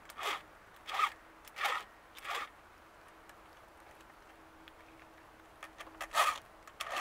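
Hand file rasping across a chainsaw chain's cutting teeth as it is sharpened. Four short strokes about two-thirds of a second apart, a pause of about three seconds, then a few more strokes near the end.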